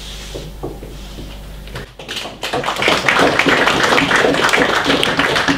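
Small audience applauding, starting about two seconds in and building quickly to steady clapping.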